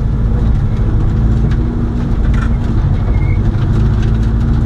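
Competition car's engine running steadily at low revs, heard from inside the cabin as a constant low drone.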